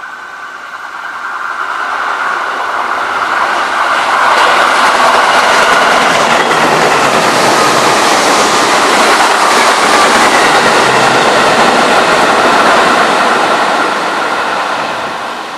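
Tobu 8000 series electric commuter train running through the station at speed without stopping. The noise of its wheels on the rails builds as it approaches, is loudest for about ten seconds as the cars pass, and fades as the rear end goes by. A steady high tone runs through it.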